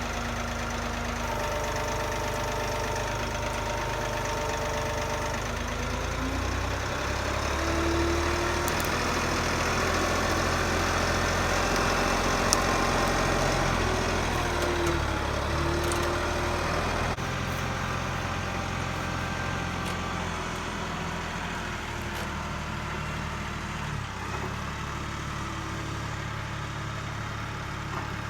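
Tractor engine running steadily, its sound rising a little through the middle and easing off again.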